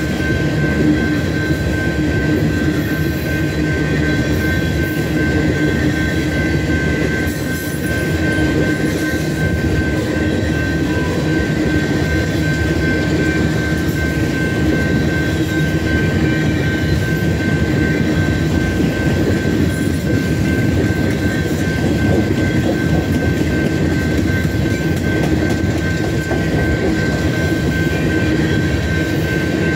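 Empty BNSF coal cars rolling steadily past, their wheels rumbling and clattering over the rails, with a steady high-pitched tone running over the rumble.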